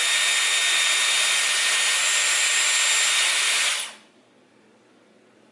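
Dyson Airwrap blowing air on its cool shot setting: a steady rush of air with a faint high motor whine. It cuts off suddenly about four seconds in.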